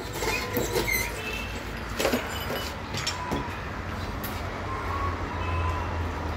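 Electric hose skiving machine running with a steady low hum while the end of a hydraulic hose is pressed onto its spinning cutter and pulled away. There are scrapes, clicks and short squeaks as the rubber outer cover is stripped thinner so the crimp fitting will slide on.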